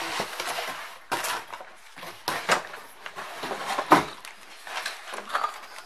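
Handling noises of a boxed chess and checkers set: irregular taps, knocks and rustles of the packaging being handled, with a sharper knock about four seconds in.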